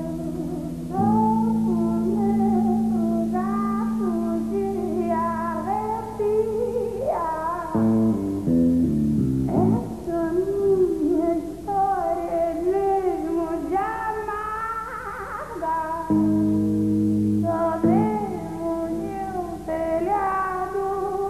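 Pop dance song playing: a wavering melody over held low notes, broken by a quick up-and-down bass run about eight seconds in, before the held notes return.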